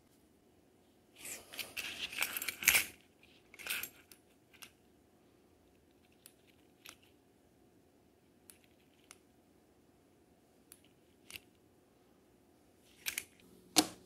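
Plastic-and-metal handling noise from a small keychain flashlight on a key ring. A burst of rattling clicks and key jangling comes about a second in, followed by scattered single light clicks. Near the end there is a sharp clack as the flashlight's magnetic back snaps onto a steel surface.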